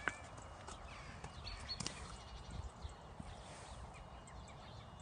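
Faint steps of a pony's hooves on soft muddy ground at a metal field gate, over a low rumble, with a few short bird chirps.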